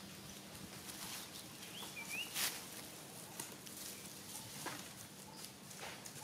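Faint outdoor ambience in the trees: a short warbling chirp about two seconds in, followed at once by a sharp click, with a few softer clicks and brief faint calls later.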